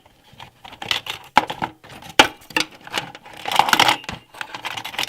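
Sharp plastic clicks and clacks of RAM slot retention clips being snapped open and memory modules being pulled out of a PC motherboard, with a brief rattling handling noise near the end.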